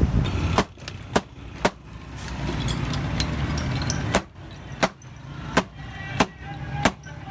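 Crown caps being popped off carbonated soda in green glass bottles with a bottle opener, one after another: eight sharp pops, a quick run of three, a pause, then five more about two-thirds of a second apart. A low traffic hum runs underneath.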